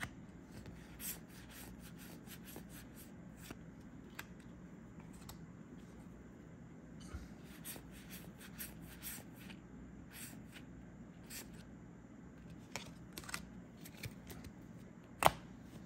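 Trading cards being handled and flipped through, faint rubbing and soft clicks of card sliding against card, with one sharper tap near the end.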